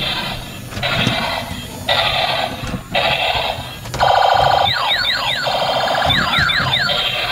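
Battery-powered light-up robot toy on wheels playing electronic sound effects through its small built-in speaker, thin with no bass. It comes in short bursts at first, then from about four seconds in turns louder, with repeated falling sweeps.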